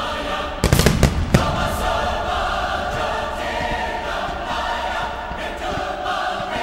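Choral music playing, with a quick run of sharp aerial firework shell bursts about a second in, after which the music carries on alone.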